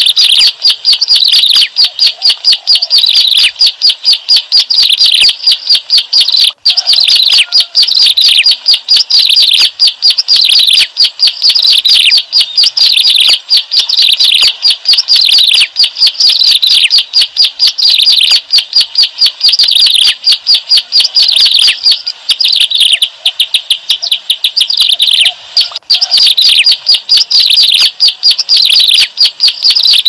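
Ciblek alang-alang, a prinia, singing loudly: fast, continuous series of sharp repeated chirping notes, broken only by brief pauses.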